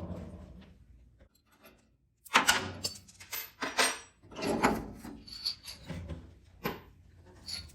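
Handling noise of parts and tools: a run of sharp knocks, clinks and short rattles, with a brief pause before a busier stretch.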